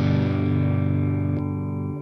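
Electric guitar with a new budget pickup, played through the Amplitube 4 amp simulator with distortion: a chord rings on and slowly fades, its bright top end dropping away about one and a half seconds in.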